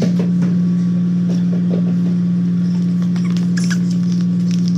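A steady low motor hum that runs unchanged throughout, with a few light knocks and rustles.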